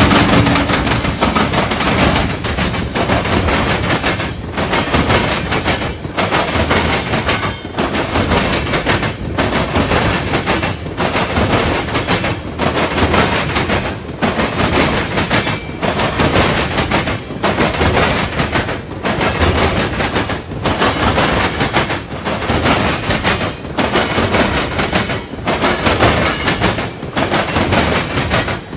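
Freight train of empty ethanol tank cars rolling past close by, wheels clattering with sharp bangs. The noise dips briefly about every second and a half as each car goes by.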